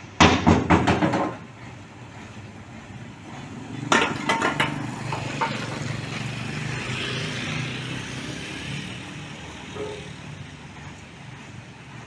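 Metal clanking and knocking from the steel-and-plank loading ramps of a self-loader trailer being handled: a clatter of about a second at the start and a shorter one about four seconds in. After it an engine runs with a steady low hum, and a motor scooter passes.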